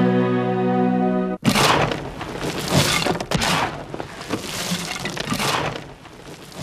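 Music holding a sustained chord cuts off abruptly about a second and a half in, replaced by a loud crash of noise like something breaking, followed by several more surges of noise that fade.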